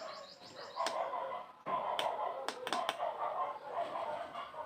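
A rapid series of high chirps, like a small bird, for about the first second. Then a steady rushing noise with a few sharp clicks.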